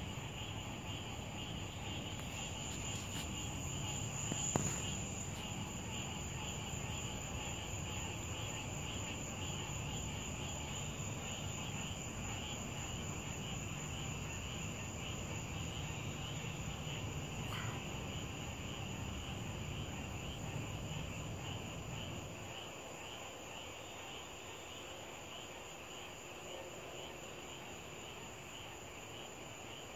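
Steady, finely pulsing chorus of night insects, with a low rumble underneath that fades out about 22 seconds in and a single sharp click about four and a half seconds in.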